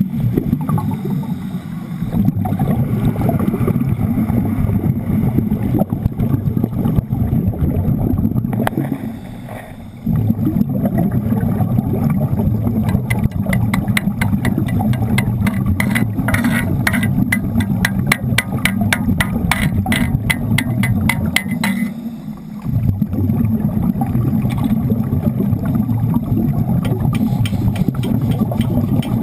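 Underwater noise during an underwater welding job: a loud, steady rush of water and air bubbles, dipping briefly twice, with a fast train of sharp clicks for several seconds in the middle.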